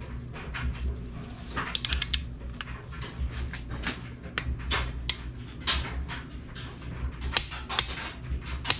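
Torque wrench ratcheting on an ARP connecting-rod bolt as it is tightened toward 43 ft-lb: scattered metallic clicks, with a quick run of them about two seconds in, over a steady low hum.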